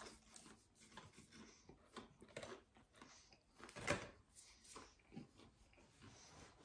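Faint chewing of crispy fried chicken wings with small clicks and rustles of hands pulling a wing apart over a cardboard box, and one louder click about four seconds in.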